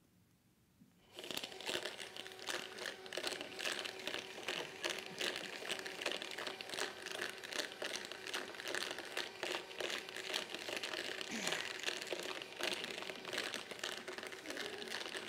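Small hobby rock tumbler switched on about a second in: rocks, sand, grit and water clattering continuously in its turning barrel, with a steady motor hum underneath.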